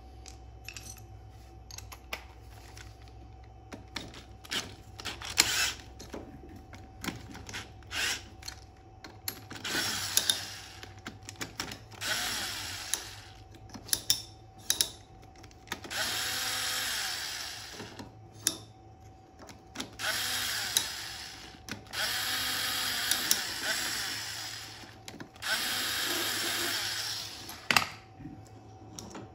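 Cordless drill running a socket to back fasteners out of a go-kart front hub. It comes in about six steady runs of one to two seconds each, with clicks and clatter of tools and parts in between.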